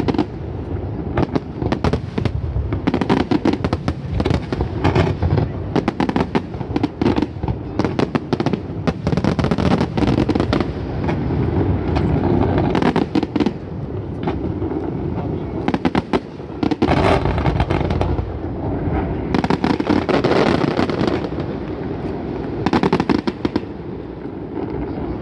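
Aerial fireworks bursting in rapid succession: many sharp bangs and crackles overlapping one another over a continuous low rumble.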